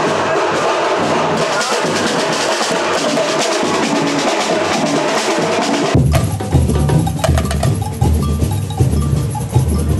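Music for about the first six seconds, then a sudden cut to a street drum band playing live: heavy bass-drum beats and sharp snare strokes in a driving rhythm.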